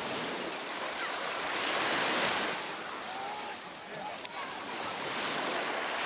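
Sea waves washing onto a beach, swelling loudest about two seconds in and again around five seconds, with faint voices of people in the background.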